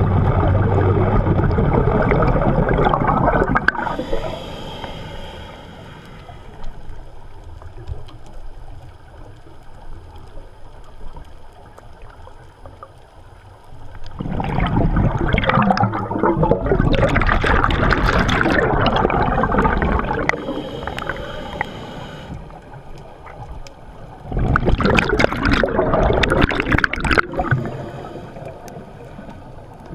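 Scuba diver's exhaled bubbles from the regulator bubbling past the underwater camera, in three long bursts several seconds apart, with quieter stretches between breaths.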